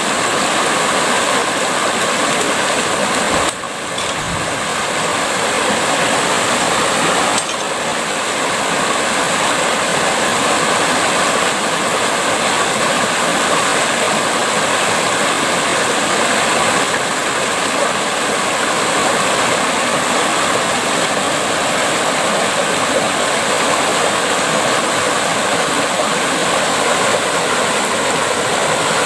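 Steady rushing noise like flowing water, with a steady high hiss on top. It dips briefly twice, about three and a half and seven and a half seconds in.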